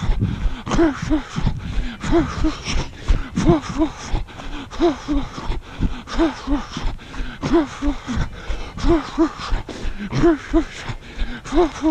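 A jogger's rhythmic breathing: short voiced puffs of breath, mostly in pairs about every second and a half, over the steady thud of footsteps on a dirt trail.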